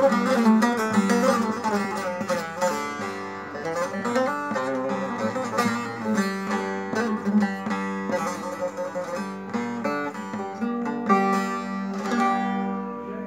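Long-neck bağlama (saz) with a mulberry body being played: a quick picked melody over a steady low drone, fading near the end.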